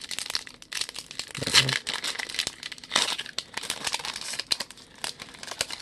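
Foil wrapper of a baseball card pack crinkling as it is torn open by hand, in irregular crackles with a few louder crinkles.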